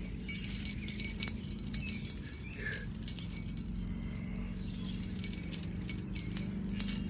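Spinning reel cranked steadily, its gears whirring with a fine rapid clicking, as a hooked carp is reeled in. A few sharper ticks and jingles sound over it.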